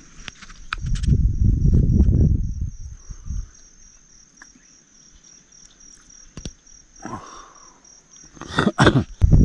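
Insects trilling steadily at a high pitch in the background. A low rumble comes about a second in and lasts a couple of seconds, and a few sharp knocks near the end are the loudest sounds.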